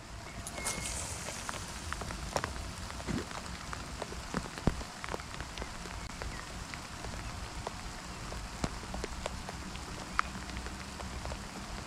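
Steady rain falling, with many scattered sharp ticks of single drops striking.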